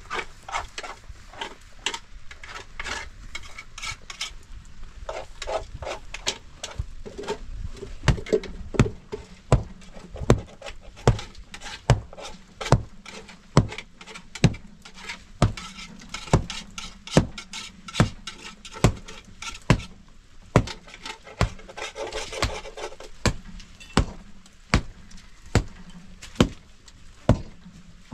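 Scattered light clatter, then from about eight seconds in a steady series of hard knocks, a little more than one a second.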